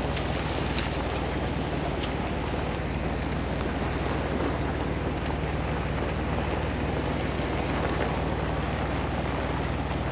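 Steady running noise of an off-road vehicle driving on a trail: an even engine drone with tyre and wind noise, no distinct events.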